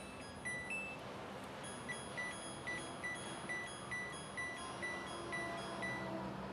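Front-loading washing machine's control panel beeping: two short rising tones as it is switched on, then a run of about ten even short beeps, a little over two a second, while the display changes.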